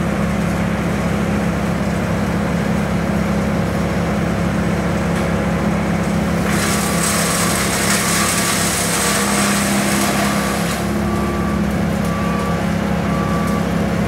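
A work truck's engine running steadily. About six seconds in, a loud hiss starts and lasts about four seconds. Around the same time a truck's reversing beeper starts, about one and a half beeps a second, and keeps going.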